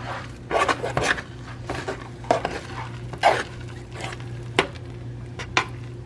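Spoon or utensil stirring, scraping and clinking against a pot and dishes in irregular knocks, over a steady low hum.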